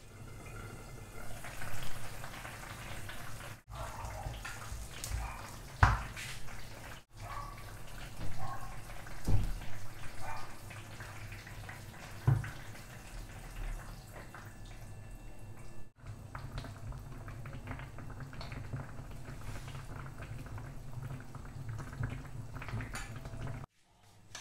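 Carrot soup simmering and bubbling in a pan, with a glass pan lid being handled and orange juice poured in from a glass. Several sharp clinks of the lid and glass stand out over the steady bubbling.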